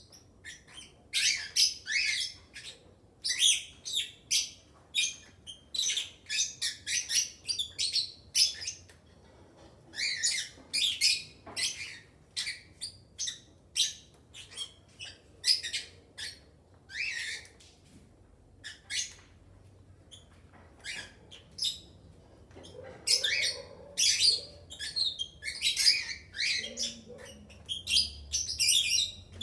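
Aviary of lovebirds, cockatiels and budgerigars calling together: many short, high-pitched squawks and chirps come in busy clusters. The calls thin out briefly about nine seconds in and again for a few seconds near the twenty-second mark.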